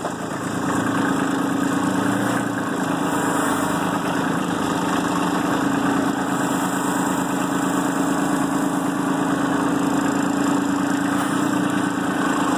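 Kubota B2650 compact tractor's three-cylinder diesel engine running steadily.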